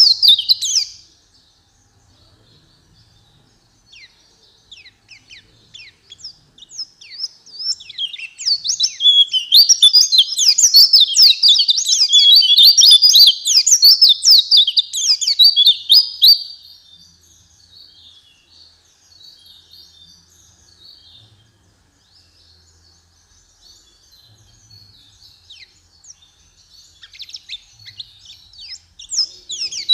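White-eye (pleci) song: a loud, fast run of high, thin chirps and quick downward notes from about 8 to 16 seconds in, with softer scattered chirps before and after, and a new loud run starting near the end.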